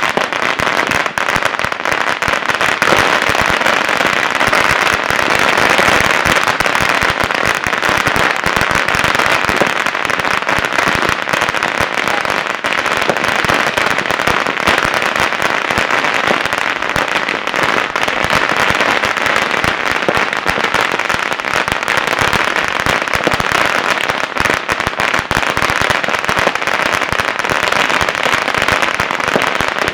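Many firecrackers going off at once in a dense, unbroken crackle of countless small pops, steady and loud with no pause, mixed with the bangs of fireworks.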